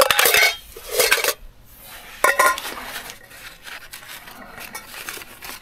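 Metal camp cookware clattering and clinking as a nested pot, mug and lid are pulled apart: three sharp clatters in the first two and a half seconds, the last one ringing briefly. Softer rubbing and rustling follows as a nylon stove stuff sack is handled.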